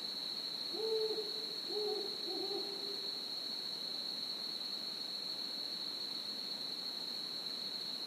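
Three short, low hooting calls, a bit under a second apart, about a second in, over a steady high-pitched tone.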